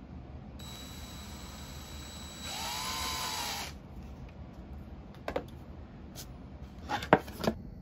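Power drill spinning a twist bit and boring into 3/4-inch expanded PVC sheet: the motor whines, gets louder as the bit cuts, its pitch dipping under load and recovering, and stops after about three seconds. Then a few sharp knocks and clicks, the loudest near the end.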